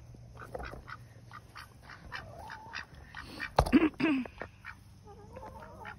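Ducks quacking in short, scattered calls, with a single sharp knock about three and a half seconds in.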